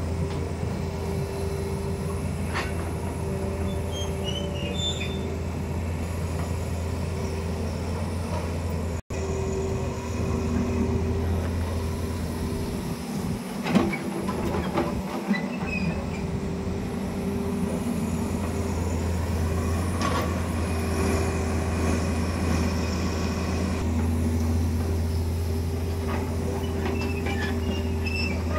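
Tata Hitachi crawler excavator's diesel engine running steadily under load as it digs and swings, with a steady whine over the low engine drone. There are a few short knocks and clanks, the loudest about halfway through.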